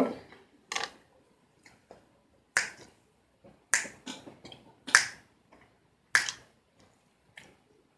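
Fingers snapping to a slow, steady beat: about six crisp snaps, a little over a second apart.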